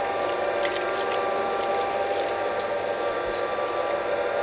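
A machine running steadily, a hum of several held tones with a fine rattling texture, starting abruptly at a cut.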